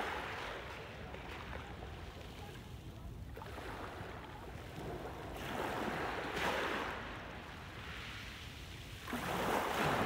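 Small sea waves breaking and washing up a pebble beach, in several swelling surges with the loudest near the end.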